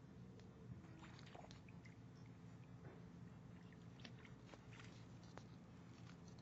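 Near silence: faint background hum with scattered faint clicks and ticks.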